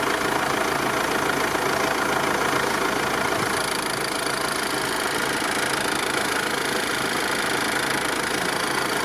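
Mercedes-Benz OM651 four-cylinder diesel idling with a knocking from its vacuum pump, set off by pressing the brake pedal as the pump pulls the vacuum back down. A knock that comes after braking is the sign of play in the vacuum pump's hexagonal drive coupling.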